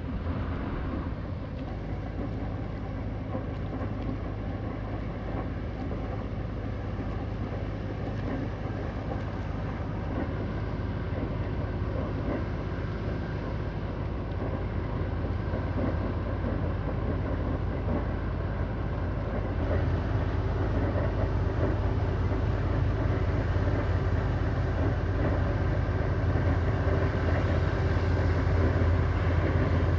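Diesel engine running steadily as a low, train-like drone from the passing pontoon and its tug, slowly growing louder.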